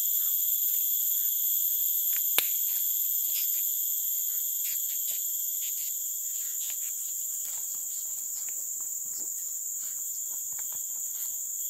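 Steady high-pitched chorus of forest insects, with a few light clicks and one sharp click about two seconds in.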